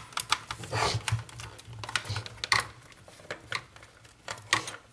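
Irregular clicks and light clatter of hand tools being picked up and handled, with a few short scrapes.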